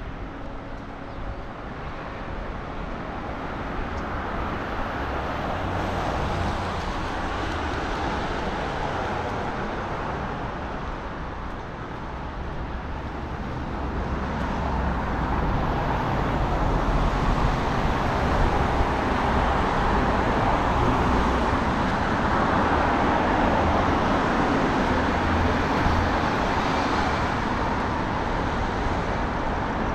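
Road traffic noise from cars going by on the street, a steady rush that grows louder about halfway through.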